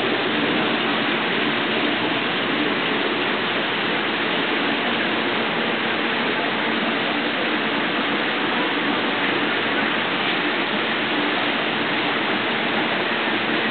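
Steady rushing of running water from a large reef aquarium's circulation and filtration, even and unbroken.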